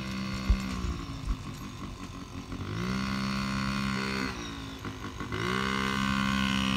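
Yamaha PW50's 50cc two-stroke single revving under throttle as the mini bike is ridden on grass: the engine falls off about a second in, climbs and holds, drops again past the middle, then climbs and holds once more before falling off at the end. A couple of short low knocks sound about half a second and a second in.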